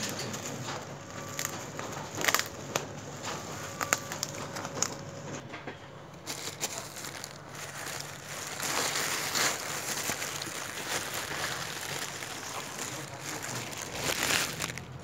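Bubble wrap and a thin plastic bag crinkling and rustling as they are handled, with a few sharp crackles and louder bouts of rustling.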